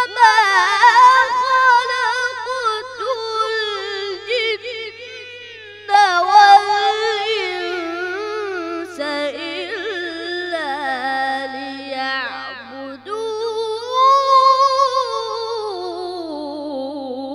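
A boy's voice reciting the Quran melodically, holding long ornamented notes with wavering pitch in three phrases. Each phrase starts loud and trails off, and the last fades near the end.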